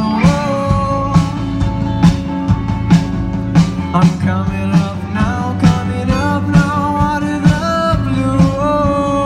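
Music: a song with guitar and a steady drum beat, its held melody line sliding from note to note.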